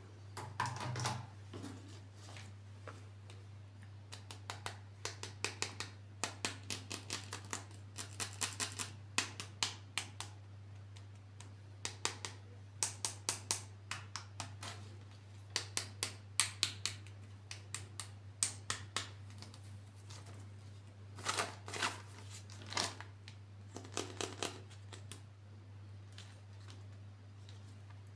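Quick clusters of small clicks and taps from plastic toy figures and packaging being handled, over a steady low hum.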